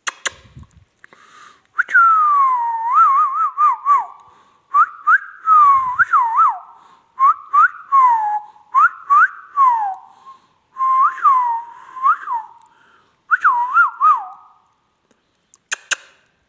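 Ring-necked parakeet whistling: a string of short phrases of quick rising and falling whistle notes, with sharp clicks scattered between them.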